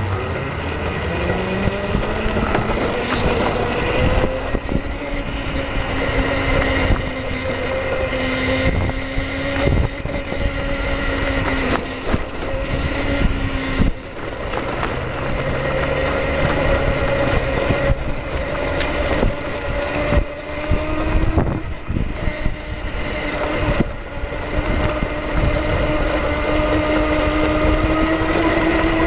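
Electric go-kart's dual 48-volt, 1,000-watt motors whining as it drives, the whine rising in pitch over the first couple of seconds as it picks up speed, then holding fairly steady with a slight rise near the end. Road and wind noise with frequent knocks and rattles run under it.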